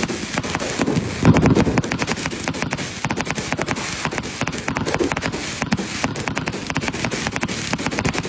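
Fireworks going off in rapid crackling volleys, many sharp pops a second, with a louder burst about a second in.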